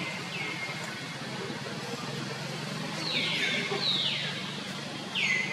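Four short, high animal calls, each sliding steeply down in pitch and then holding briefly: one near the start, two close together around the middle, one near the end. A steady low hum runs underneath.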